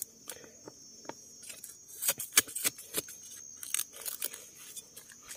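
Bamboo shoots and stems being snapped and handled while harvesting wild bamboo shoots: scattered sharp snaps and rustles, with a cluster of louder cracks about two to three seconds in.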